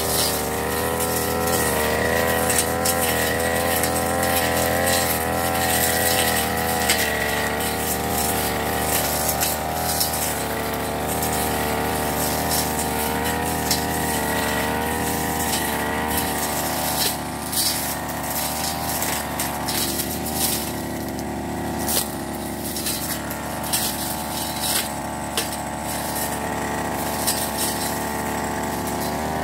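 Backpack brush cutter's engine running hard as it cuts grass and weeds, its pitch wavering up and down. About halfway through the engine drops back to a lower, quieter run, and scattered sharp ticks can be heard.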